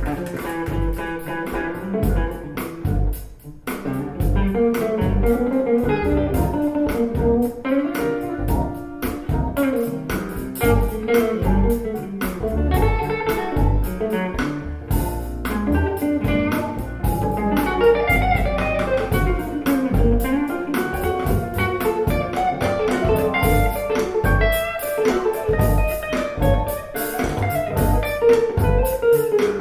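Blues-style music with guitar and bass guitar over a steady beat, played back through KEF LS50 Black Edition bookshelf speakers.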